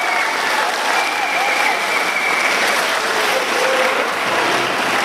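Audience applauding at the end of a dance routine, steady throughout, with a thin high steady tone over it for about a second and a half starting about a second in.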